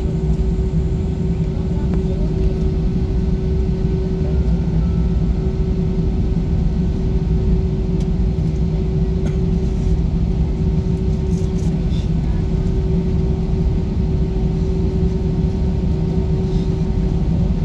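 Steady cabin rumble of an Airbus A320 taxiing with its engines at idle, with a constant low hum under it and no change in pitch.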